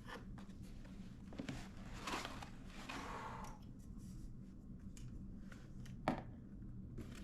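Light rustling and scraping from handling an airsoft rifle and its packaging, with small clicks and one sharp click about six seconds in.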